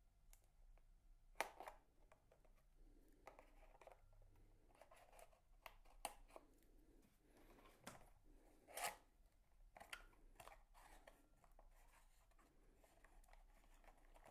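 Small scissors snipping through the paper seal on a cardboard box, a few faint snips and scrapes with two sharper clicks, about a second and a half in and near nine seconds. Near the end the cardboard box is handled and its flap pulled open.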